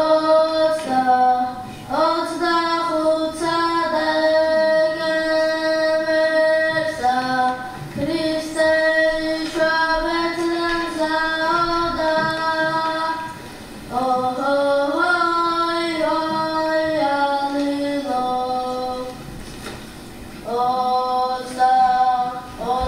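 Small mixed ensemble of women's voices and one man's voice singing a Georgian polyphonic song a cappella in close harmony: long held chords in phrases of about six seconds, with short breaks for breath between them.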